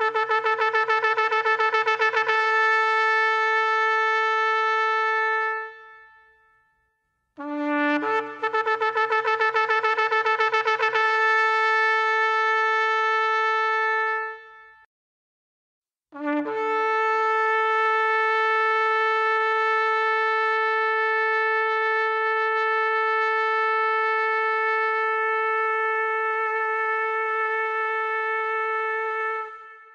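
Shofar (ram's horn) blown in three long blasts. Each blast opens on a brief low note and jumps up to a higher held note; the first two waver rapidly through most of their length, and the third is a long steady note held for about thirteen seconds before it cuts off near the end.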